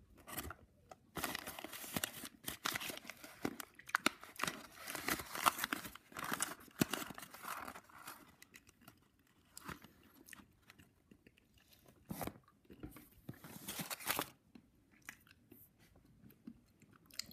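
Paper and aluminium-foil wrapper of a chocolate bar being torn and crinkled open in irregular bursts, densest through the first half, with another burst past the middle.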